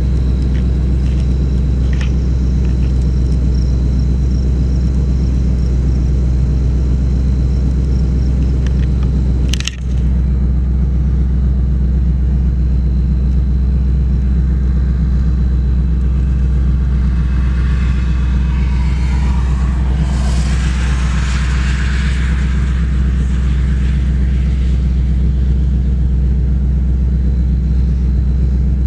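Vehicle engine idling, heard as a loud, steady low hum from inside the cabin. There is a single sharp click about ten seconds in. About two-thirds of the way through, a rush of noise swells and fades.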